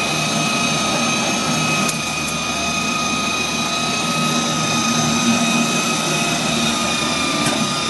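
Portable electric seaming machine running steadily as it travels along and crimps the seam joining two curved K-span steel arch roof panels: a steady high whine over a lower motor hum.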